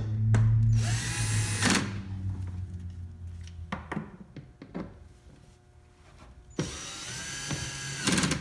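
Power drill with an 8mm socket driving the plastic cabin-filter housing screws: two short runs of the motor whine, about a second in and again near the end, each rising in pitch as it spins up. Small clicks and knocks of handling come in between.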